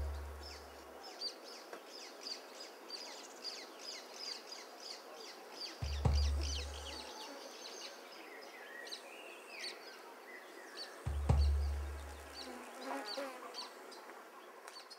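Many small birds chirping steadily, with one longer gliding call about nine seconds in. Two deep booming hits cut through, about six and eleven seconds in, each dying away over about a second.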